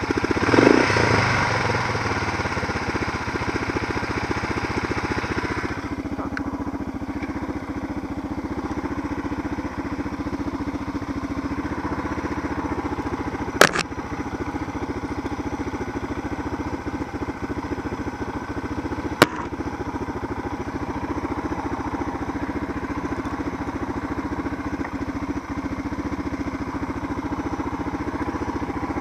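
Suzuki DR650's single-cylinder engine idling steadily with the bike at a standstill, briefly louder just under a second in. Two sharp clicks about five seconds apart midway through.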